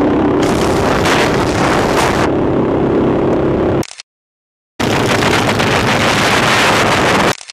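Wind rushing hard over the microphone of a camera on a moving motorcycle, with the bike's engine running steadily underneath. The sound cuts out for about a second midway, then the same riding noise carries on.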